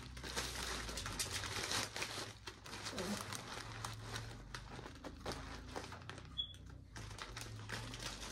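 Plastic wrapping and tissue paper crinkling and rustling in irregular spurts as hands rearrange items in a gift basket.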